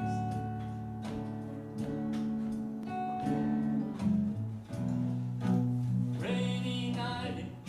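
Acoustic guitar playing slow chords with long ringing low notes. Near the end a voice briefly sings over it.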